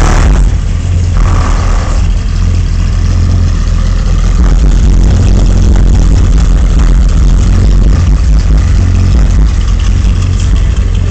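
Loud, deep bass from a car audio system of four Kicker Solo-Baric L7 12-inch subwoofers on about 4000 watts, playing a bass-heavy stretch of music. There is little of the song's upper range.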